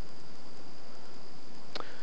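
Steady insect chorus in woodland, a constant high-pitched buzz, over an even background hiss, with a short click near the end.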